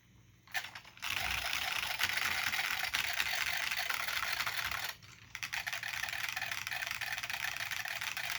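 Fast typing on an IBM P70 keyboard's Alps plate-spring switches, a rapid clatter of keystrokes. It starts about half a second in with a few taps and breaks off briefly about five seconds in.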